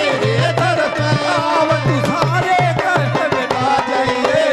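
Live devotional bhajan music: a dholak beating out a steady rhythm under a gliding keyboard melody, with regular strokes of brass percussion.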